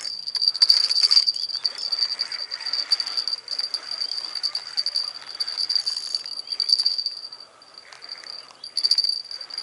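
Spinning reel rattling and clicking in fast runs as a hooked carp is played on a hard-bent rod. A steady high-pitched whine runs underneath.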